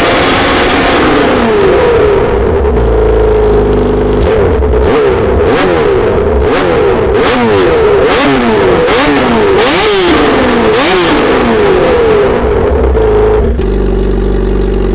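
Suzuki GSX-R750's inline-four engine revved in repeated quick throttle blips through an Akrapovic Megaphone exhaust, each rev rising and dropping back, sometimes several in a row. A little before the end it settles to a steady idle.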